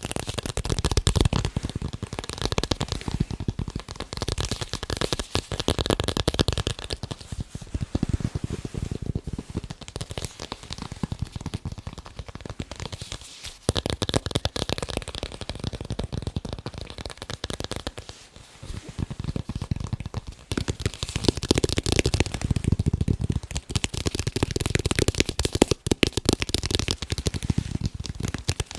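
Fast, continuous tapping on sports balls: a dense stream of quick taps with short breaks about 13 and 18 seconds in.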